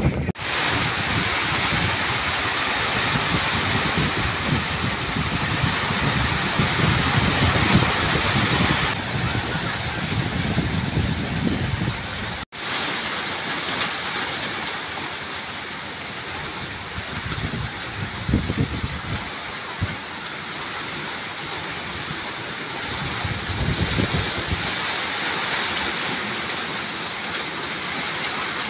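Heavy typhoon rain and strong gusting wind, with the gusts buffeting the microphone as a low rumble that is stronger in the first part. The sound drops out for an instant a little before halfway.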